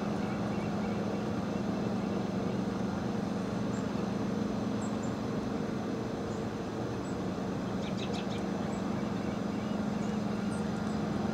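Steady low mechanical hum with a constant hiss, unchanging throughout, with a few faint high bird chirps and a short run of light taps about eight seconds in.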